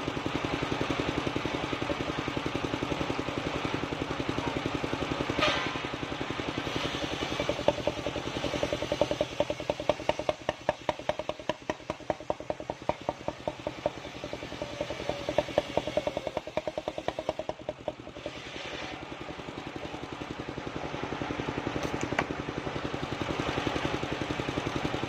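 Engine of a portable circular sawmill running steadily. For several seconds in the middle the sound turns into a fast run of regular loud knocks.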